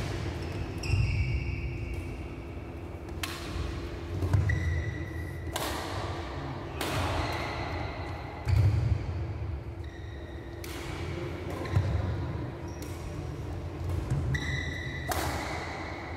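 Badminton rally: sharp racket strikes on the shuttlecock every few seconds, with short high squeaks of court shoes and heavy footfall thuds, echoing in a large hall over a steady low hum.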